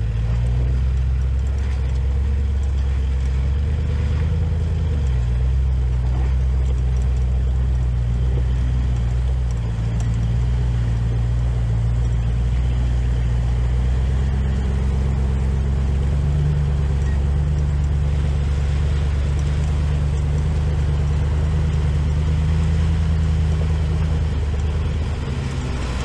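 Four-wheel-drive vehicle's engine running steadily at low revs, its note stepping up or down a few times.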